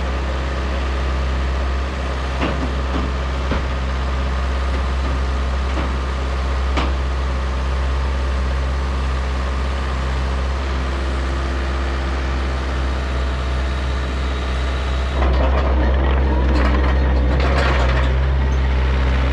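Diesel engines of two compact track loaders, a Bobcat and an IHI CL35, running steadily under load, with a few sharp knocks in the first seven seconds. About fifteen seconds in, the engine noise jumps louder and a rattling clatter follows as one loader moves close by.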